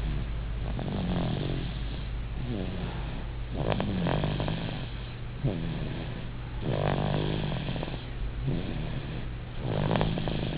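An 8-month-old baby snoring in sleep, a rasping snore on each breath about every second and a half.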